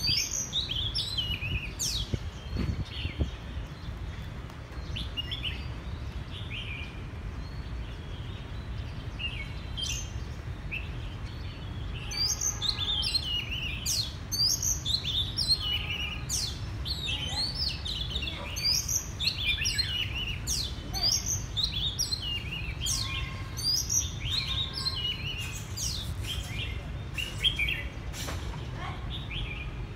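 Oriental magpie-robin singing: a run of short, varied whistled phrases and chirps that grows busier about halfway through, over a steady low background rumble.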